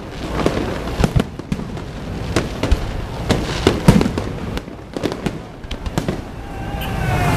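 Aerial fireworks bursting in quick succession: an irregular run of sharp bangs and booms of varying loudness, several a second at times.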